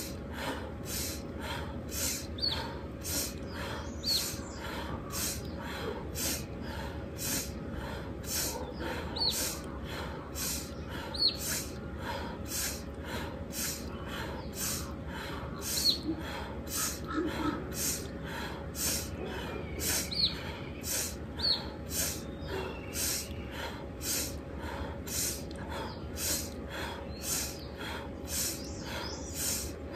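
Fast, rhythmic pranayama breathing: sharp inhales through the left nostril alternating with exhales through a mouth shaped in an O, about one and a half breaths a second, a heat-generating breath. Birds chirp briefly now and then behind it.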